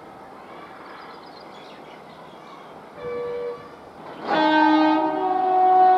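WAP-4 electric locomotive horn: a short blast about three seconds in, then a much louder, long blast of several tones sounding together from just after four seconds in, still sounding at the end.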